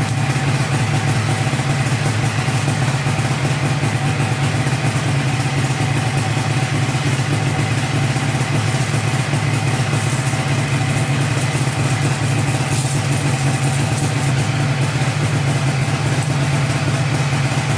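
An old Ski-Doo snowmobile's two-stroke engine idling steadily just after a cold start.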